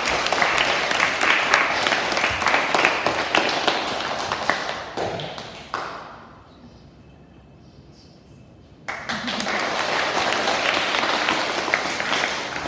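An audience of schoolchildren applauding in two rounds: the first clapping dies away about six seconds in, and a second round starts about nine seconds in and runs until near the end.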